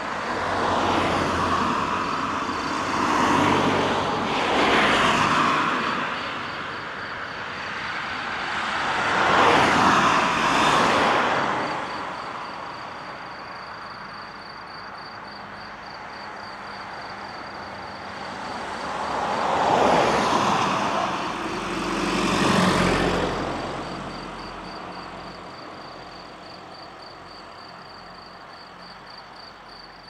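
Cars passing by on a road one after another, each a swell of tyre and engine noise that rises and fades, in groups near the start, around ten seconds in and around twenty seconds in. Insects chirr steadily in the background.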